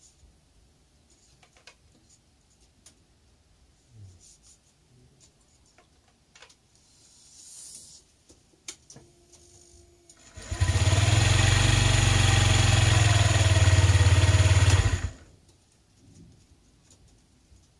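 Honda Zoomer scooter's small four-stroke single-cylinder engine starting and running steadily for about five seconds, then cut off, after an oil top-up while the owner tracks down an abnormal noise. Before it, a few faint clicks and handling noises.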